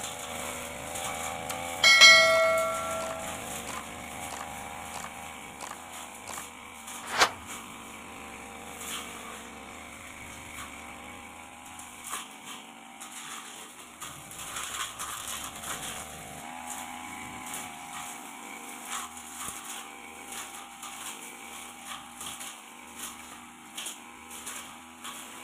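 Backpack brush cutter running steadily while cutting light grass, with scattered ticks from the blade. About two seconds in, a clear bell-like ring lasts about a second, and a sharp click comes about five seconds later.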